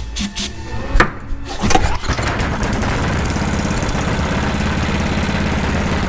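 Tecumseh HM80 8 hp single-cylinder engine being started: a few sharp knocks in the first two seconds, then it catches about two seconds in and runs steadily, its repaired governor holding the speed.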